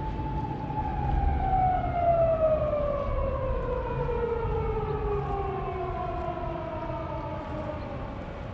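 An outdoor siren holds a steady tone, then winds slowly down in pitch over several seconds, like a motor-driven siren running down. A low rumble sits underneath.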